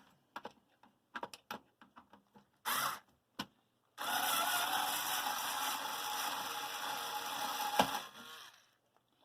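Small clicks and knocks of the satellite box's circuit board being handled and undone. About four seconds in, a steady whirring hiss starts suddenly, runs for about four seconds, and stops with a click, then fades.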